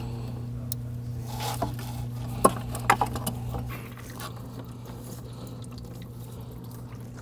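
Radiator drain plug being worked loose with a few sharp clicks, and engine coolant draining out of the radiator, over a steady low hum.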